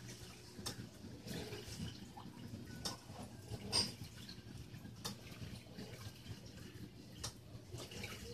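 Reef aquarium water trickling and splashing, with scattered drips and a low steady hum. The loudest drip comes about four seconds in.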